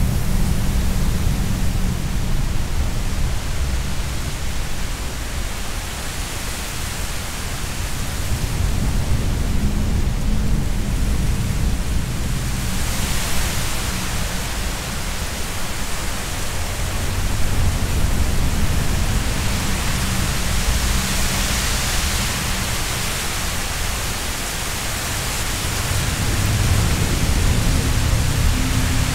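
A steady rushing hiss over a low droning hum. The hiss grows brighter about halfway through and again a little later, and the low hum swells near the end.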